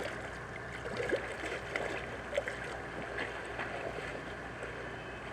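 Swimming-pool water lapping and sloshing close by, with small scattered splashes from a swimmer's strokes, over a steady low hum.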